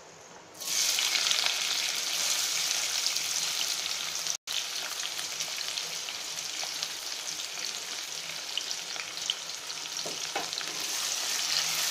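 Diced onion sizzling in hot oil in an iron kadhai, starting suddenly about half a second in as the onion hits the oil, a steady hiss with small crackles. The sound cuts out for an instant about four seconds in.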